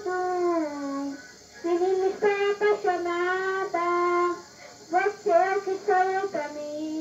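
A boy singing into a handheld microphone: sung phrases of held and gliding notes, with two short breaks for breath. Old VHS home-video sound with tape hiss.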